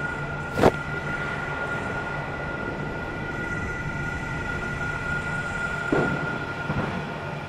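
Dark ambient droning music with a rumbling noise bed, a steady high whine and a low hum. A sudden short hit about two-thirds of a second in is the loudest moment, and a weaker one comes near six seconds.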